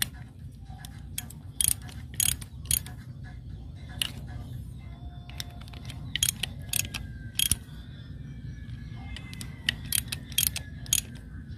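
Ratchet wrench with a socket on an extension bar clicking in short, irregular bursts as the bolts of a truck's wheel hub cap are turned.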